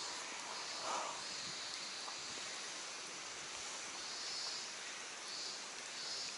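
Steady outdoor hiss in a wooded creek gorge, with a high-pitched trill coming and going in short stretches of about half a second to a second, and a brief mid-pitched sound about a second in.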